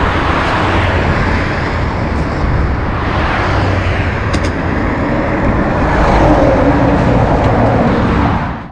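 Road traffic noise: a steady rush of passing cars on a highway, swelling slightly late on and cutting off suddenly at the end.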